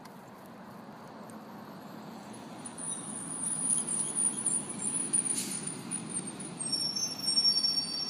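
School bus approaching, its engine and tyre noise growing steadily louder, with a high, thin squeal from about three seconds in.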